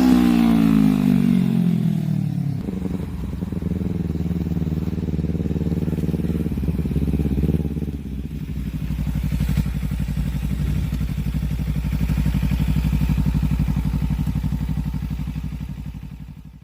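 2015 Audi Q3's engine just after starting: the revs drop over the first couple of seconds as the start flare settles, then it idles steadily. The sound fades out near the end.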